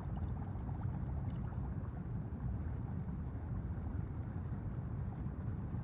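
Steady low rumbling underwater ambience, with a few faint clicks.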